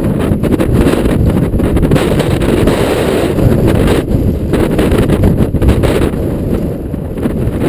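Strong wind buffeting the camera microphone during a mountain-bike ride, a heavy low rumble, with many quick clicks and rattles from the bike over the trail.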